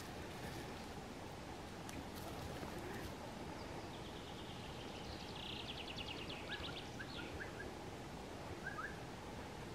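A small songbird singing: a rapid trill of quick, evenly spaced notes a little after the middle, followed by a few short chirps, over a steady faint background hiss.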